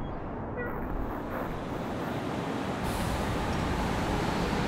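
City street traffic ambience: a steady wash of vehicle noise that grows fuller and brighter about three seconds in.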